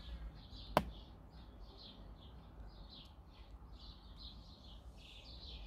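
Faint, steady series of short high chirps, about three a second, typical of a small bird calling repeatedly; a single sharp click about a second in.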